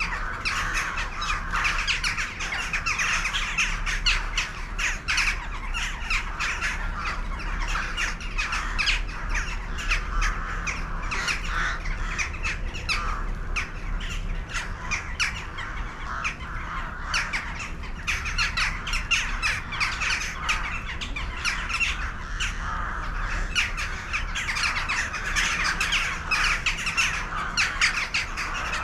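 A large flock of birds calling all at once: a dense, unbroken chorus of many short, overlapping calls at a steady level.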